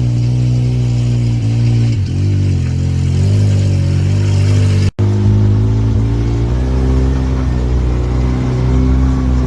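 Mini truck's small engine running steadily under way, its pitch dipping briefly about two seconds in and wavering slightly later. The sound cuts out abruptly for a moment about five seconds in, then the engine carries on.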